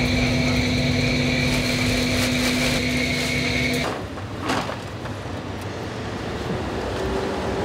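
Steady hum and roar of a restaurant kitchen's exhaust fan and gas burners, with several held tones, cutting off abruptly about four seconds in. Quieter street background follows, with one short clatter.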